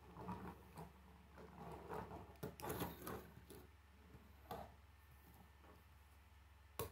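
Plastic K'nex toy car handled on a wooden tabletop: faint clattering and knocks of plastic parts and wheels against the wood as it is rolled and turned over by hand, with a sharper click near the end.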